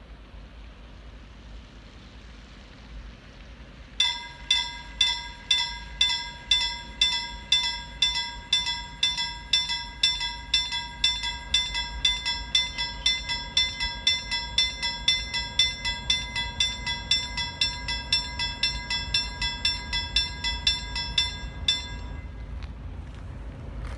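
Railway level-crossing warning bell ringing with evenly spaced strikes, about two a second. It starts about four seconds in and cuts off a couple of seconds before the end as the barriers are down. A low rumble grows under it near the end as the freight train arrives.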